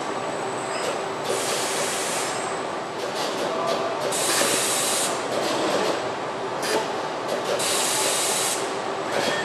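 Car body-shop assembly-line machinery running with a steady mechanical hum, broken three times by hisses of air about a second long, roughly every three seconds.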